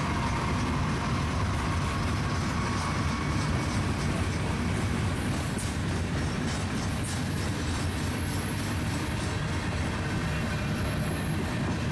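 Diesel freight train rolling past close by: the locomotives' engines rumble steadily and the wheels click over the rails.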